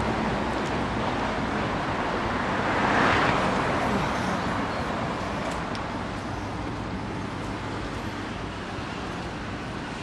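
Steady city road traffic. One vehicle passes close and grows louder about three seconds in, then the traffic fades to a lower, even hum.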